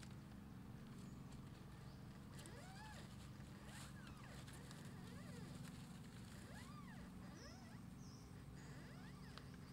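A puppy whimpering faintly: about five short, high whines that rise and fall in pitch, over a steady low hum.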